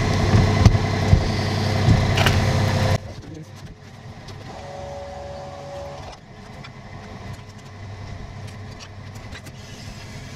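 An engine runs steadily with a low hum for about three seconds, then cuts off abruptly. After that come light scattered clicks and knocks, with a brief steady whine partway through.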